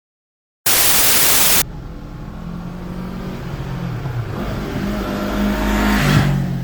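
A loud one-second rush of noise, then a car engine running and accelerating, its pitch bending and rising and growing louder before easing near the end.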